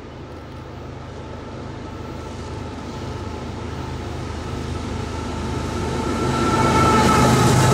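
Diesel locomotive-hauled train approaching, its engine drone and rail noise growing steadily louder, with a faint high whine coming in near the end.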